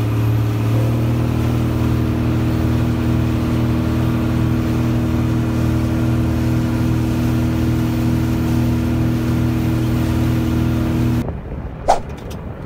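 Boat engine running steadily under way, its pitch stepping up slightly about a second in. It cuts off near the end, followed by one short, sharp sound.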